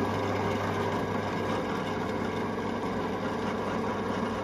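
Drill press motor running with a steady hum, its spindle turning a swaging/flaring tool that is pressed hard into a Holley 4150 carburettor body to flare over the booster fitting.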